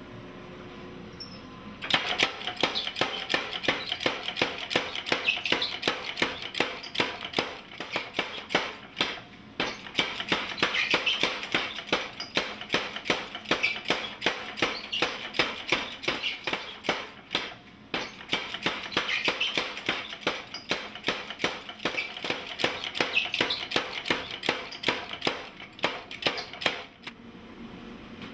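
Power hammer pounding a glowing steel bar, about two to three strikes a second in an even run that starts abruptly and breaks off briefly twice before stopping.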